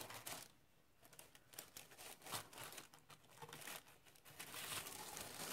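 Faint, intermittent rustling and crinkling as a folded piece of linen-effect fabric and its crinkly packaging are handled and unfolded by hand.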